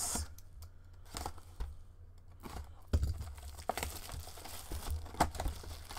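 A 2022-23 Upper Deck Ice hockey card box being handled and opened: cardboard and wrapping rustling and tearing, with a sharp click about three seconds in and busier rustling after it.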